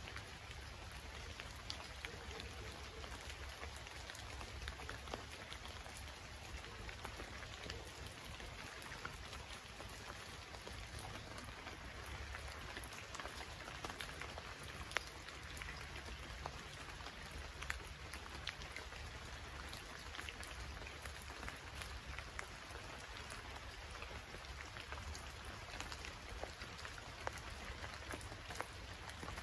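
Steady rainfall, a constant hiss of rain with many individual drops ticking sharply close by.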